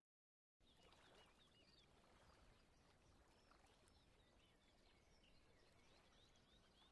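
Near silence: after half a second of dead silence, a faint steady hiss with many faint, short, high bird chirps.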